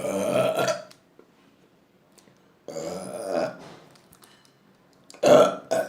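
A woman burping over and over: a long burp at the start, another about three seconds in, and two short ones in quick succession near the end.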